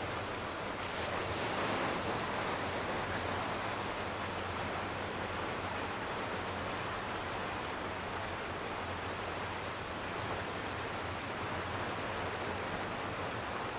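Small ocean waves washing over shallow sand flats, a steady hiss of surf that swells a little about a second in and then settles.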